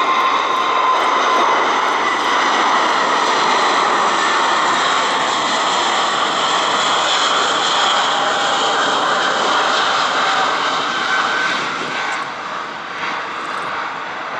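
Airbus A380's four turbofan jet engines at climb power as it climbs out after takeoff: a loud steady roar with a high whine over it, easing off over the last few seconds.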